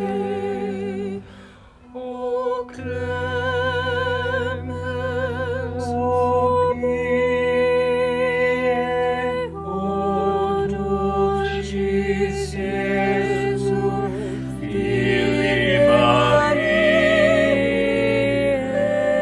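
A vocal quartet of two women and two men singing in harmony, long held notes with vibrato, with a brief break between phrases about two seconds in.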